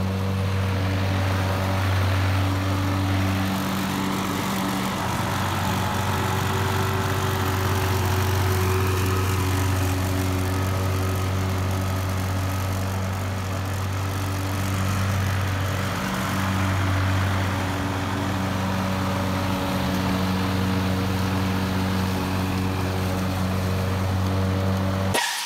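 Walk-behind gas lawn mower engine running steadily as the mower is pushed across grass; the sound cuts off abruptly at the very end.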